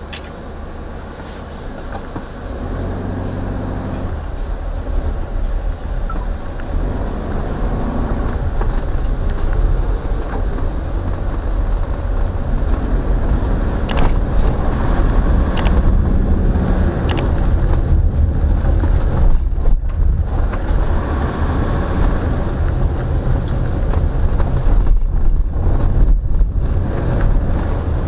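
Car driving on a rain-soaked road, heard from inside the cabin: a steady low rumble of engine and wet tyre noise that grows louder over the first few seconds, with a few sharp ticks around the middle.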